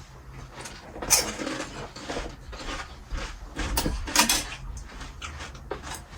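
Spoons and dishes clattering and clinking in a series of sharp knocks, the loudest about a second in and twice around four seconds in.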